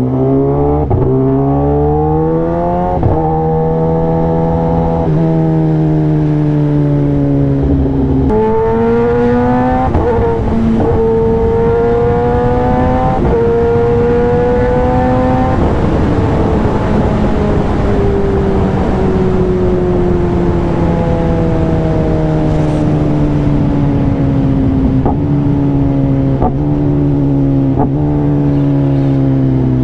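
Kawasaki Ninja ZX-10R inline-four heard from the rider's seat, accelerating hard up through the gears. The engine note climbs and drops back at each upshift, several times in the first half. In the second half the note falls steadily as the bike eases off, with a few brief breaks near the end.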